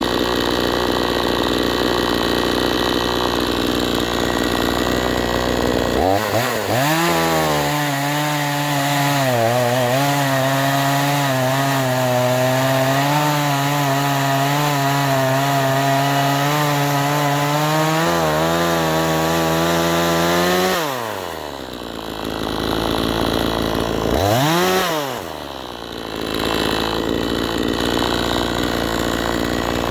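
Chainsaw idling, then revved up about six seconds in and held at high speed for roughly fourteen seconds, its pitch wavering as it cuts firewood. It drops back to idle, gets one short rev blip a few seconds later, and idles again.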